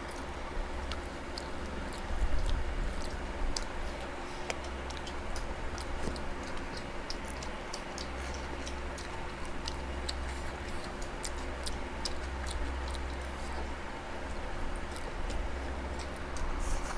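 People eating at close range: chewing, with many small irregular mouth clicks and smacks, over a steady low hum.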